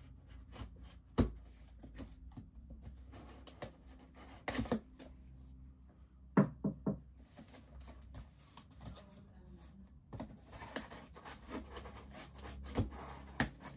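A cardboard shipping box being opened with a dull knife: scraping, cutting and rustling, broken by sharp knocks and taps, including three quick knocks about six and a half seconds in.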